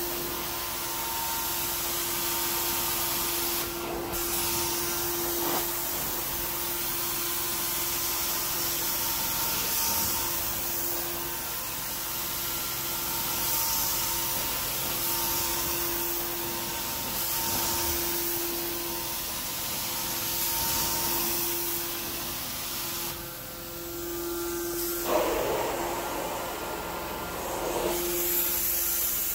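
Carpet-cleaning extraction wand sucking and hissing steadily over carpet, with a steady hum underneath from the extractor machine. The hiss swells and fades every couple of seconds with the passes of the wand.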